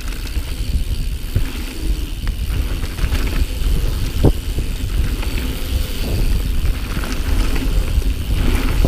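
Mountain bike riding fast down a dirt singletrack: a steady rush of wind on the microphone and tyre noise on the dirt, with scattered clicks and rattles from the bike.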